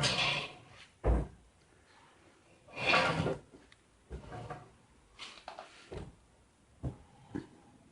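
Boat steering cable's inner core being pushed and pulled through its casing, now sliding in and out freely after being loosened with WD-40. Two sliding swishes, the second about 3 s in and loudest, with a sharp knock about a second in and a few lighter knocks near the end.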